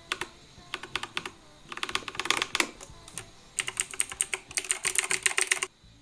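Akko 3098B mechanical keyboard being typed on: quick runs of keystrokes come in several bursts with short pauses between them. The longest run comes in the second half, and the typing stops just before the end.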